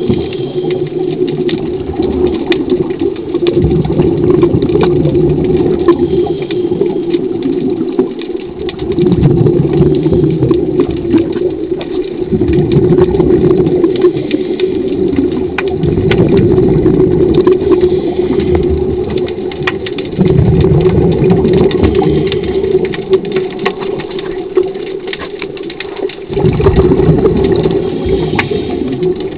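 Underwater recording of a diver propulsion scooter's electric motor running with a steady hum. Surges of scuba regulator exhaust bubbles rise over it for a few seconds at a time, over and over.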